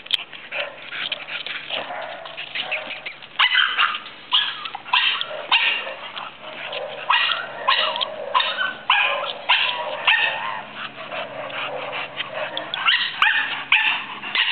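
Dog yipping and barking in many short, quick calls, some with a whining rise and fall in pitch.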